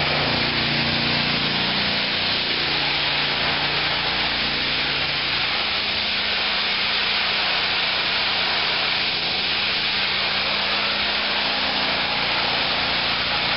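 Hot-water pressure washer spraying a jet of water at close range onto a door: a loud, steady, dense hiss, with a low hum from the machine beneath it in the first few seconds.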